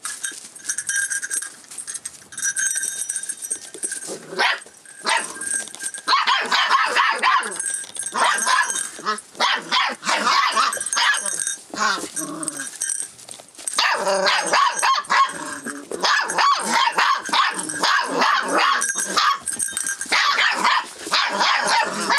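Six-week-old rough collie puppies barking and yapping while they play-fight, in rapid strings of high, sharp yaps. The barking is quieter for the first few seconds, then comes in dense loud bouts.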